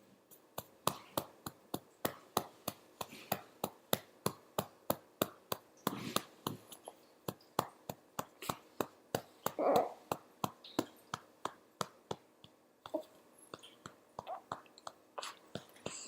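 A hand patting a baby's back in a steady rhythm, about three pats a second, to bring up a burp. A brief vocal sound comes about six and again about ten seconds in. The patting stops about thirteen seconds in, leaving a few scattered taps.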